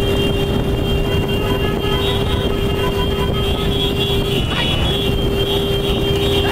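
Motor vehicles running with a heavy low rumble, and a horn held in one steady tone that breaks off briefly about four and a half seconds in.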